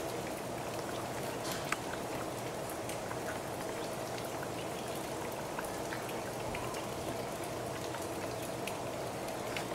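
Steady patter of falling water drops, many small ticks over a constant background hum.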